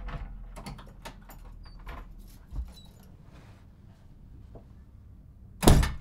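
Keys rattling and a front door lock and latch clicking as the door is unlocked and opened, then the door shut with a loud bang near the end.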